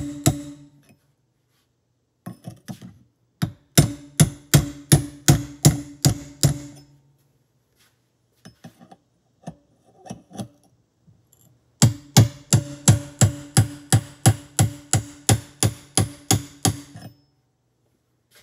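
A hammer strikes the back of an axe head, driving its thin blade as a wedge under the press-fit bearing on a Can-Am Smart-Lock front differential hub. Two long volleys of sharp metallic strikes come about three a second, each ringing with a steady tone, with a few lighter taps between them.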